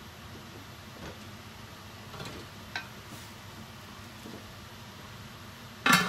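Stainless steel pot lid handled on a cooking pot: a light ringing metallic clink a little under three seconds in, then a loud clank near the end as the lid is set back on the pot.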